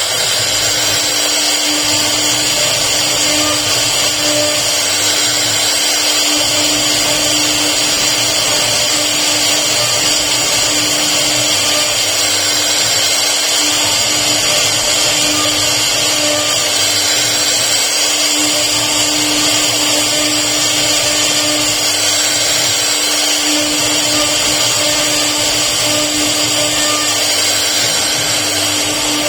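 CNC router spindle running steadily at high speed, its high-pitched whine carrying through as it carves wood.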